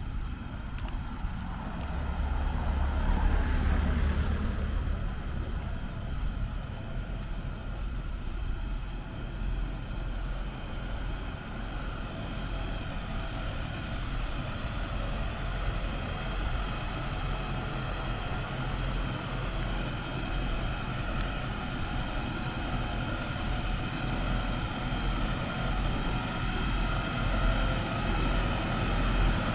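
Motor vehicle noise: a louder swell as a vehicle passes a few seconds in, then a steady engine hum with a high, even whine above it.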